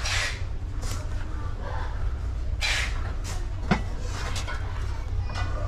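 Store background: a steady low hum with a few brief hissy rustles and one sharp click a little past halfway.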